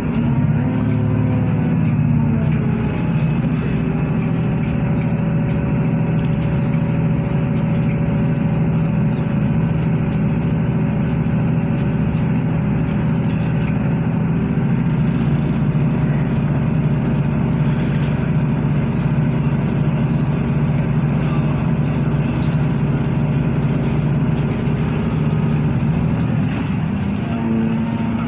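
Inside a diesel passenger train running at speed: the steady drone of its underfloor engine and the rumble of wheels on the rails, with the engine note shifting near the end.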